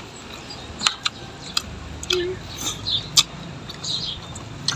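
Eating at the table: scattered light clicks of chopsticks against a metal pan and bowls, with chewing.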